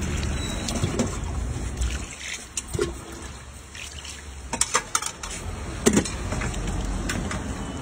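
Liquid poured in a heavy stream from a steel jug into a steel pot of chole, splashing. A few sharp metal clinks of a spoon against the steel pot follow about two-thirds of the way through.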